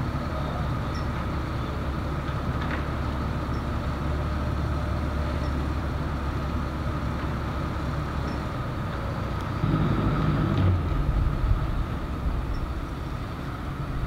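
Steady low rumble of vehicle engine noise, growing louder for about a second and a half near ten seconds in.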